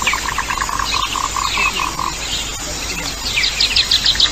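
Animal calls: a run of evenly pulsed notes, about five a second, that stops about two seconds in, then a higher, faster trill near the end.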